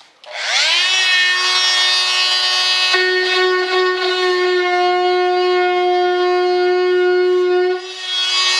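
A high-speed handheld rotary tool spins up with a rising whine and then holds a steady high whine as it cuts along the edge of a composite wing part. Its pitch sags briefly near the end, as if under load, then picks back up.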